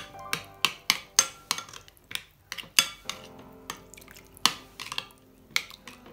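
Metal spoon stirring tomato-paste sauce in a glass bowl, clinking against the bowl in quick, irregular strokes about three a second, with a short lull about two seconds in.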